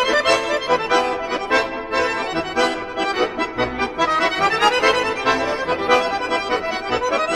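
Instrumental break of a Russian folk song, the accordion playing a lively dance tune in a steady rhythm.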